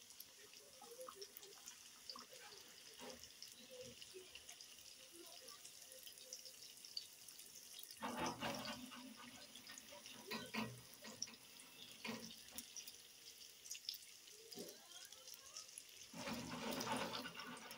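Doughnuts deep-frying in hot oil in a small saucepan: a steady, light sizzle with fine crackles, growing louder for about a second some eight seconds in and again near the end.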